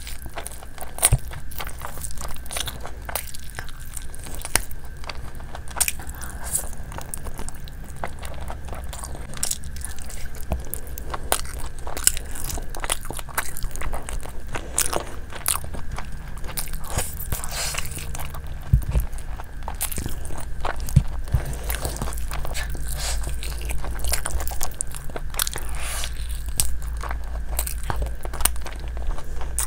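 Close-up eating sounds of a person biting into and chewing saucy chicken pieces by hand: a steady run of small mouth clicks and smacks, over a low steady hum.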